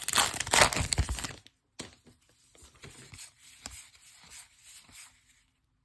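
A trading-card pack wrapper tearing and crinkling for about a second and a half, then soft rustling and scraping of cards being handled.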